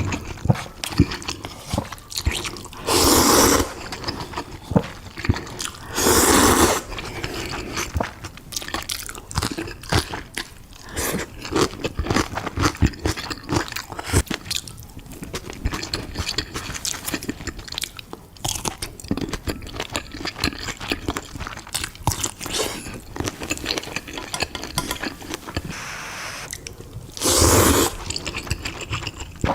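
Close-miked mukbang eating sounds: steady chewing with many small wet mouth clicks, broken by three louder crunching bites of about a second each, a few seconds in, around six seconds in and near the end.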